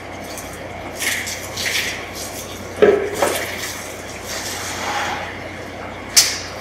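Plastic buckets being handled on a concrete floor while grout mixing is set up: rustling scrapes, then a hollow plastic knock near the middle as a bucket is set down, a smaller knock just after, and a sharp clack near the end.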